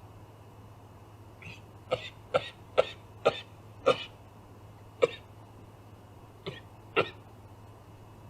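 A string of short, sharp, cough-like calls from an unseen animal. There are about nine of them, irregularly spaced, beginning about a second and a half in and bunched most closely in the first half.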